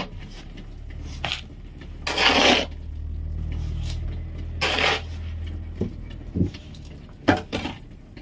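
Hand concrete work: metal pans and shovels scraping through wet concrete in two strokes of about half a second each, then four sharp metal clanks, over a low machine hum that fades about six seconds in.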